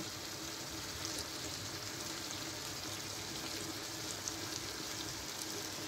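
Clay tagine of lamb and green beans sizzling steadily on the heat, with a couple of faint small clicks as beans are set into it.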